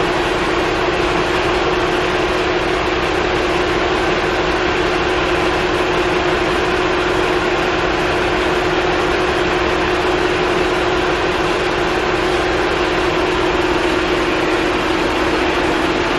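Marine diesel engine with MTU electronic controls idling steadily while warming up: a loud, even drone with one constant tone running through it.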